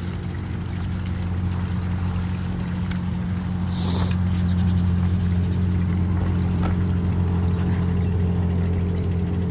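Petter diesel engine on a tube well pump running steadily with a constant low hum, while liquid is poured into it from a plastic jerry can through a funnel.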